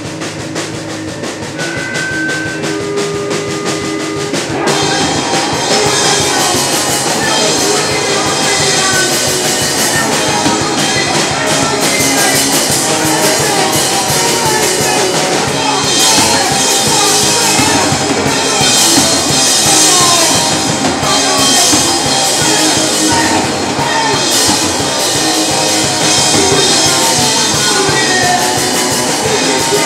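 Live rock band playing, with drum kit, bass and electric guitar, and a woman singing into a microphone. The first few seconds are sparser, drums with a few held single notes, and then the full band comes in louder about five seconds in.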